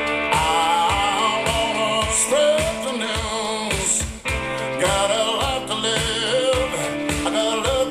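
A rock song with singing and a steady drum beat, played through Aeria Compact hi-fi loudspeakers driven by a Luxman FQ 990 amplifier and heard in the room.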